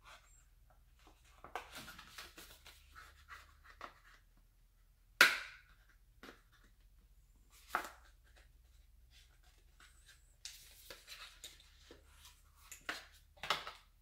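Scattered clicks, taps and rustles of a phone's retail box and packaging being handled, with one sharp knock about five seconds in and a smaller one a couple of seconds later.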